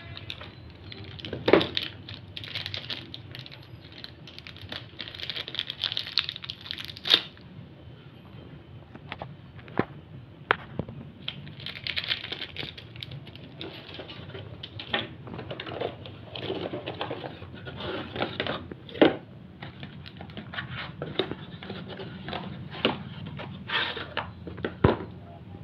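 Plastic packaging crinkling and tearing as bicycle crankset parts are unwrapped by hand and taken from their cardboard box. Occasional sharp clicks and knocks come through, the loudest about a second and a half in, around seven seconds, near the middle and near the end.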